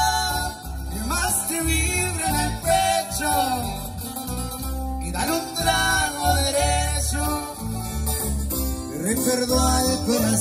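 Live band amplified through stage PA speakers: a singer over strummed acoustic guitars and an electric bass line.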